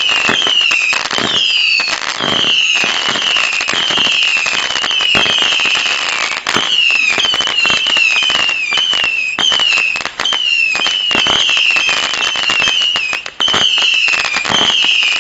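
Gemstone Fireworks 'Whistler' firework cake firing a rapid series of whistling shots. Each shot gives a short, shrill whistle that falls in pitch, about two a second and often overlapping, with sharp pops and crackle throughout.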